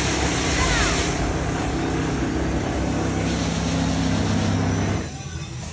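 Loud, steady machine-like rumble and hiss with a low hum underneath, dropping away suddenly about five seconds in.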